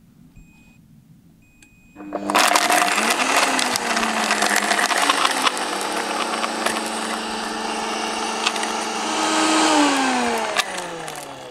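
Two short beeps from a Moulinex high-speed blender's control panel, then its motor starts about two seconds in and runs loudly while sugar cubes crack and rattle in the jar as they are crushed into powdered sugar. Near the end the motor's pitch drops as it slows down.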